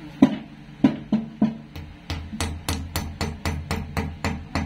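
Hammer tapping a plastic wall plug into a hole in a masonry wall: a few separate blows, then from about two seconds in a quick even run of about four taps a second.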